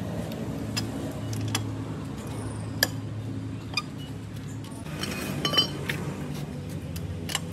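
Scattered sharp metallic clinks over a steady low hum.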